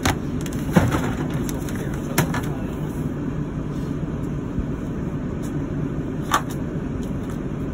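A few knocks and clicks of items being handled over a steady low rumble, with one knock a second in, another about two seconds in and a last one near the end.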